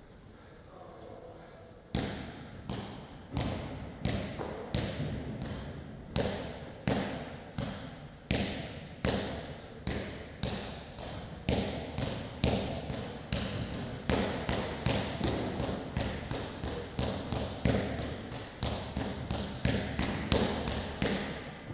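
A long run of sharp thuds, each with a short ring after it, starting about two seconds in. They come about one and a half a second at first and quicken to two or three a second.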